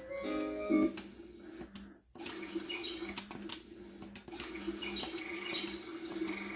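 Fisher-Price Sweet Snugapuppy Dreams Cradle 'n Swing's built-in speaker playing a few short electronic notes, then, after a brief break about two seconds in, a birdsong track of repeated high chirps over a steady tone.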